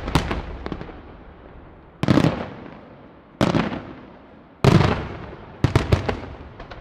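Aerial firework shells bursting: about five heavy booms roughly a second and a half apart, each trailing off in a rumbling echo, with a quicker run of sharper cracks near the end.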